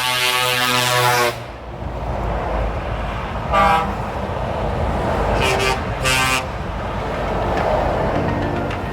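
Truck air horns sounding over steady motorway traffic: a long blast that cuts off about a second in, a short toot midway, then two more short toots.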